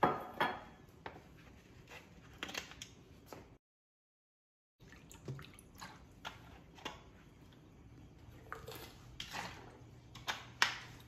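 Water poured from a plastic water bottle into a glass measuring cup, with scattered clicks and crackles of the plastic bottle being handled. The sound cuts out completely for about a second partway through.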